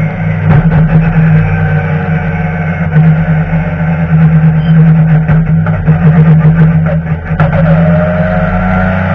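BMW touring car's engine running hard under race load, heard from inside the cockpit as a loud steady drone with a few sharp knocks. Just after seven seconds the sound dips briefly, then a rising whine sets in as the car accelerates again.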